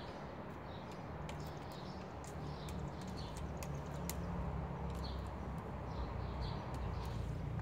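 Outdoor background of small birds chirping repeatedly in short calls, over a low steady rumble that grows a little louder toward the end, with a few faint ticks.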